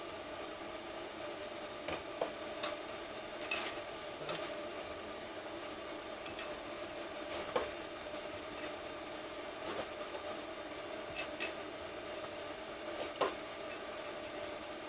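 Light metallic clinks and taps at irregular intervals as parts are fitted back into the Suzuki DRZ400's clutch basket, over a steady hum.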